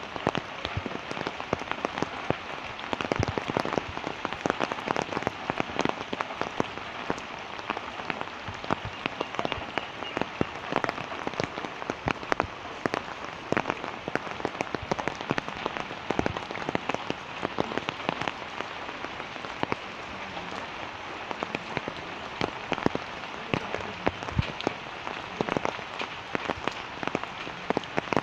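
Steady rain falling, with a dense haze of noise and many sharp individual drop hits close by.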